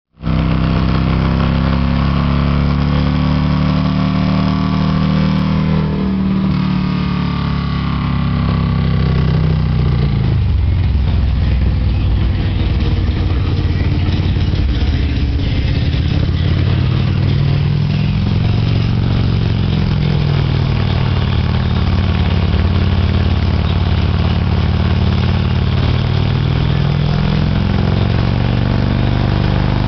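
Touring motorcycle's engine running on a chassis dyno. It is held at high revs for the first several seconds, then drops in pitch about ten seconds in, and after that runs at lower revs that rise and fall slightly.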